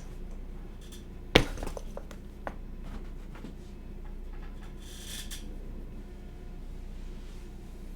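One sharp hard clack about a second and a half in, as a hard object is knocked or set down on a desk, followed by a couple of lighter clicks. There is a brief hiss around five seconds in.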